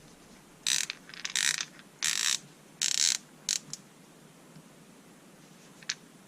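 Gearwrench ratchet screwdriver's ratchet clicking in quick bursts as it is turned: four short runs of rapid clicks in the first three seconds, then two brief clicks and a single faint click near the end.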